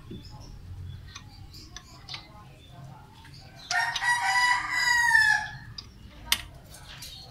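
A rooster crowing once in the middle, one long call of nearly two seconds that drops in pitch at its end, the loudest sound here. A few sharp clicks and knocks come before and after it.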